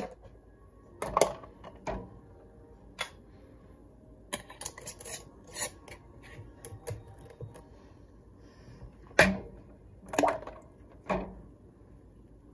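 Glass canning jars with metal lids and bands knocking and clinking as they are handled and set into an aluminum pressure canner: a string of separate knocks, three of the loudest near the end.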